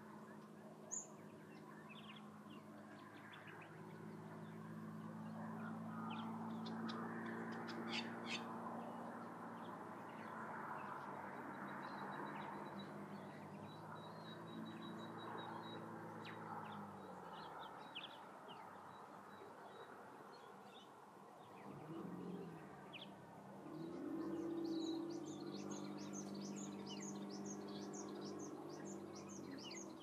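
Birds calling and chirping in coastal bushland, with scattered short high notes and a quick run of chirps near the end. Under them runs a steady low hum that stops a little past halfway, and a second hum rises in pitch about two-thirds of the way through.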